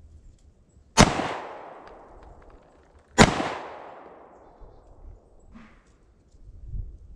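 Two pistol shots about two seconds apart, each followed by a long echoing decay.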